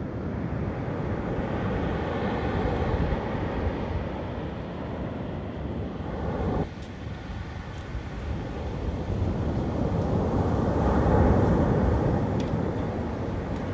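Surf washing onto the beach in a steady rush that swells and fades, dropping suddenly about seven seconds in and building again to a peak near the end.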